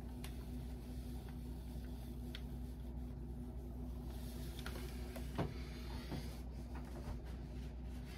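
Steady low electrical-sounding hum with a few faint clicks and taps, the clearest about five and a half seconds in.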